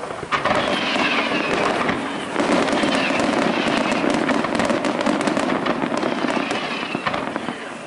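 Aerial fireworks display: shells bursting overhead in a dense barrage of crackling pops and bangs, growing louder about two and a half seconds in.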